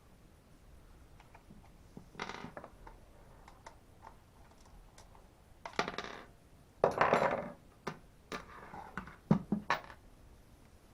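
Metal clinking and rattling of small bolts, a tool and chainsaw engine parts being handled, in several short bursts with sharp clicks near the end.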